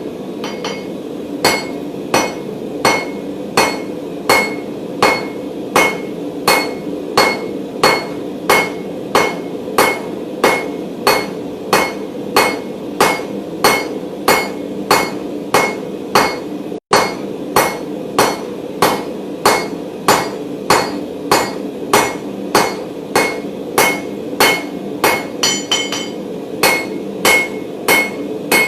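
Hand hammer striking a hot mild steel bar on an anvil in a steady rhythm of about one and a half blows a second, each blow ringing. The round bar is being forged square.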